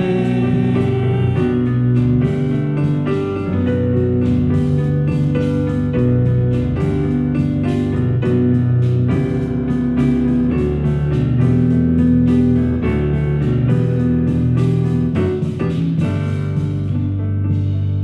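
Praise band playing an instrumental break with keyboard chords, guitar and drums in a steady beat. Near the end the beat drops away, leaving a held chord.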